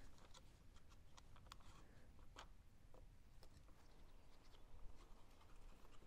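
Near silence with faint, scattered small clicks and scrapes: plastic glazing packers being pushed into place between the glass unit and the aluminium frame with a glazing paddle.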